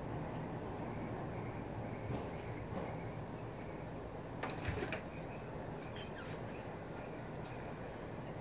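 Packaging being handled: faint rubbing and rustling, with a few light clicks about halfway through, over a steady background hiss.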